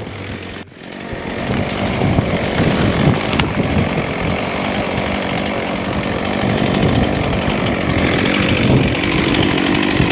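Chainsaw running steadily at high revs, cutting wood. It starts abruptly under a second in, after a short tail of music.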